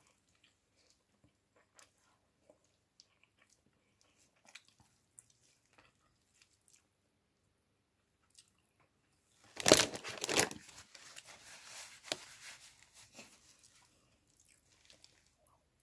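Close-up eating sounds of a meal of chicken and rice eaten by hand: small, scattered smacks and clicks of chewing and fingers in rice. About ten seconds in there is a loud burst of noise lasting about a second, which then fades through a few seconds of quieter chewing noise.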